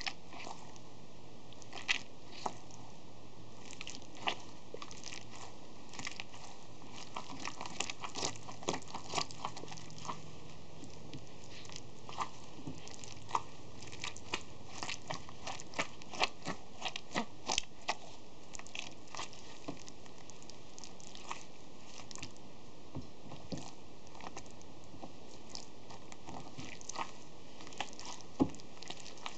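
A rubber-gloved hand squeezing and kneading chunky green slime in a plastic tub, making irregular wet squelches and crackles. They come in quick clusters through the middle and are sparser near the start and end.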